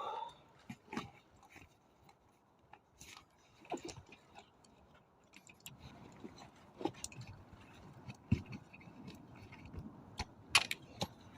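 Camping gear being handled and unpacked: scattered small clicks, knocks and rustles at irregular moments, with a closer cluster of sharp clicks near the end.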